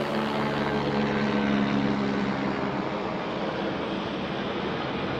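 Steady mechanical vehicle drone with an even rushing noise; a set of held tones fades out about two seconds in.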